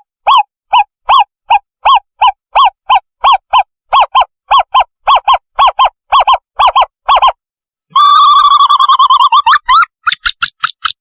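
Recorded owl decoy call, played loud to lure birds: short pitched notes repeating about two to three a second. After a brief pause about seven seconds in comes a wavering trill, then a few quick, higher notes before the sound cuts off.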